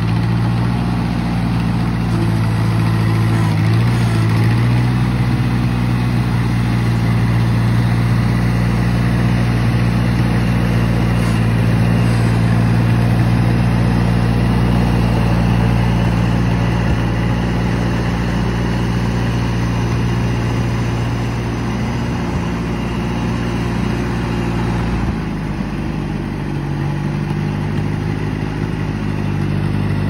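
A 1956 Ford four-cylinder tractor with a loader and backhoe, its engine running steadily as it drives along. The engine note dips and settles at a different pitch about 25 seconds in.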